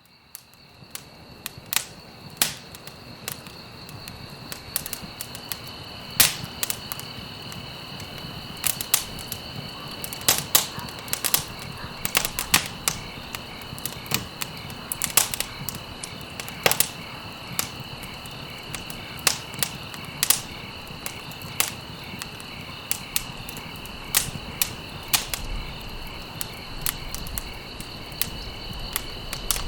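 Wood fire crackling in a fireplace: irregular sharp pops and snaps over a steady low rush of burning, fading in over the first few seconds. A steady high-pitched tone runs underneath.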